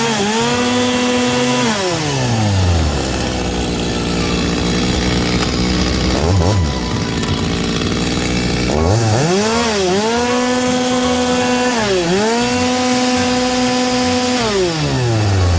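Stihl MS250 single-cylinder two-stroke chainsaw engine revved from idle to high speed, held a second or two, then let fall back to idle. It gets a quick throttle blip about six seconds in. It is then revved up again and held near the end with two brief dips in speed before dropping back.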